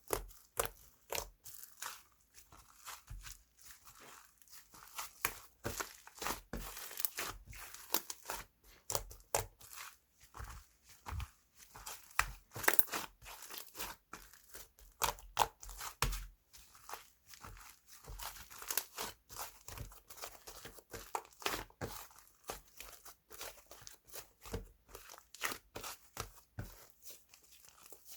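Hands crinkling and tearing paper or plastic wrapping: a dense, irregular run of small crackles and rustles.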